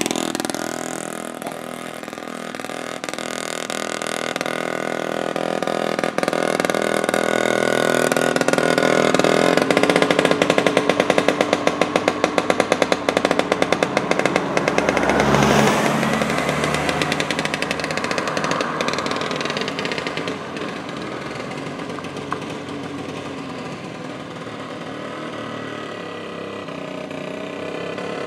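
The 100 cc BMA clip-on engine of a 1920s Terrot motorized tandem running on the road with fast, even firing. It grows louder toward the middle and then fades as the tandem moves off.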